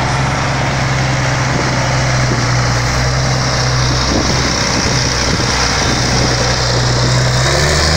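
Race truck's diesel engine running at low revs as it rolls slowly past: a steady, deep drone that lifts a little near the end.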